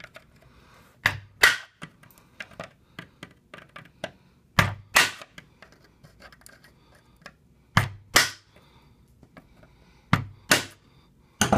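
Metal rod knocking against the concentric knockout ring of a plastic solar-module junction box to punch it out: four pairs of sharp knocks, about three seconds apart, with light ticks and taps between them.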